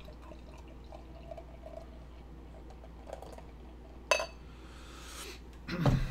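Beer poured from a glass bottle into a glass, with faint gurgling. A sharp clink comes about four seconds in, and a dull knock near the end.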